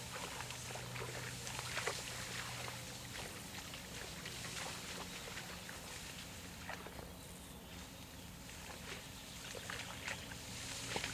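A Barbet (French water dog) wading through pond water, her legs making small irregular splashes and sloshes as she searches.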